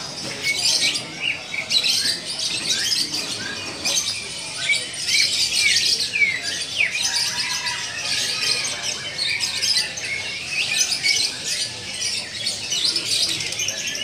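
A dense chorus of many caged songbirds chirping and singing at once, a constant overlapping flurry of short, high chirps and quick whistled sweeps.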